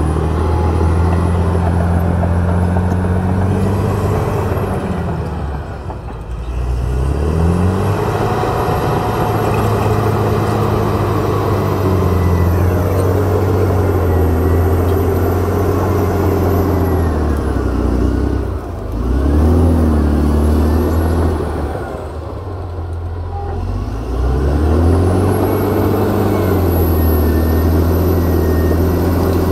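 Caterpillar D7R crawler dozer's diesel engine running hard under load while it pushes soil and brush, with a faint high whine above the engine note. Three times the engine note sags and then climbs back up.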